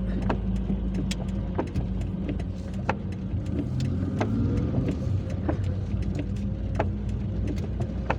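Steady engine and road noise heard inside a moving car, with irregular sharp ticks of heavy rain hitting the roof and windscreen.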